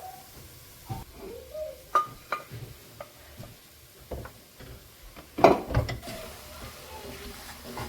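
Kitchen handling sounds: a scatter of sharp clinks and knocks of utensils against dishes, with a louder clatter about five and a half seconds in.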